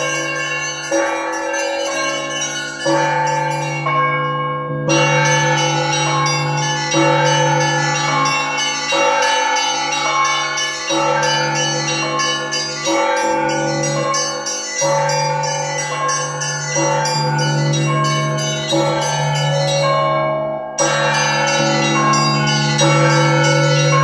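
Russian Orthodox church bells ringing a continuous peal: a steady deep bell tone under many higher bells struck in quick repeating patterns, fresh strikes coming about once a second.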